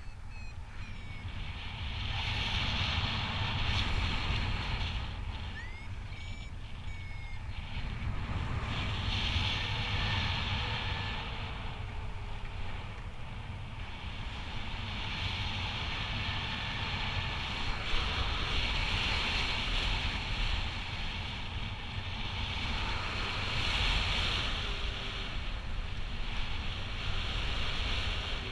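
Wind rushing over the microphone of a paraglider in flight: a steady low rumble under a hiss that swells and eases every few seconds.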